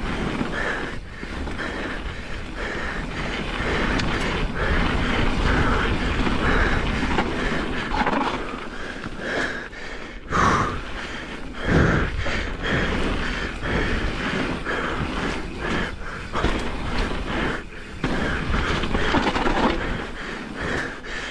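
Pivot Firebird enduro mountain bike riding fast down a dirt singletrack: a steady rumble of knobby tyres on the trail surface, with the chain and frame rattling and knocking over bumps.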